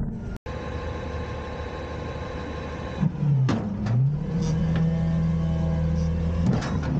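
Front-loader garbage truck's engine running and revving as its hydraulic forks lift a dumpster overhead. The engine note dips and climbs again about halfway through, then holds steady, with a few sharp metal clanks from the lifted bin.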